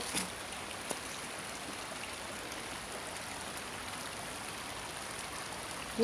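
Small forest creek flowing, a soft, steady rush of water.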